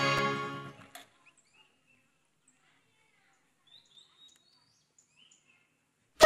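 Background music fades out over the first second, then near silence with a few faint bird chirps, before music cuts back in abruptly at the very end.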